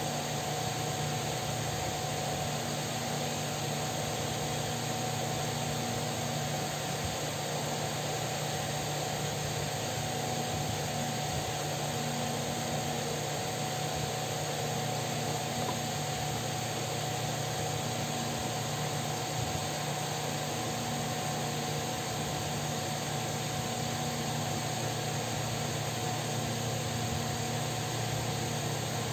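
Electric pedestal fan running: a steady whir with a constant low hum underneath.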